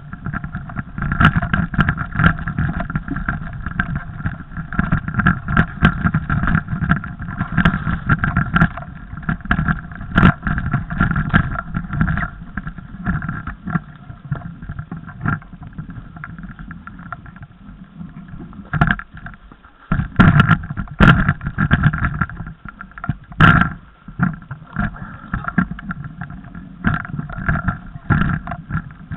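Mountain bike ridden over snowy, rough forest singletrack: constant clattering and knocking of the bike and camera mount over the bumps, with tyre noise, and several hard jolts about two thirds of the way through.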